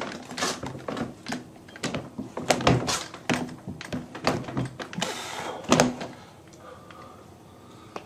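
uPVC door being lifted and worked back onto its hinges: a quick, irregular run of knocks and clunks from the door and hinge fittings for about six seconds, then it goes quieter.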